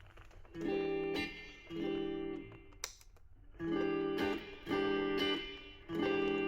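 Parker PDF70 guitar being strummed: five chords, each ringing for about a second with short pauses between.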